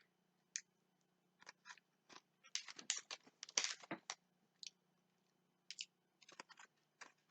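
Faint crunches and clicks of someone biting into and chewing a chocolate-coated gingerbread biscuit stick, most of them bunched about three seconds in.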